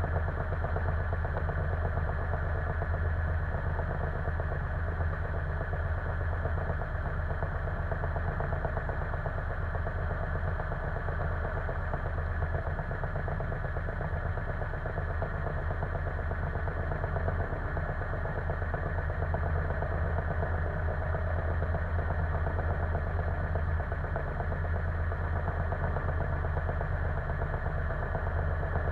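A single-engine light aircraft's piston engine idling on the ground before taxi, heard from inside the cockpit as a steady, unchanging low drone.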